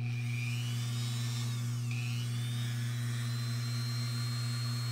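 Small rotary tool fitted with a 1.5 mm drill bit running at high speed, ready to drill thin brass tubing. Its whine climbs, dips about two seconds in, then settles at a steady high pitch.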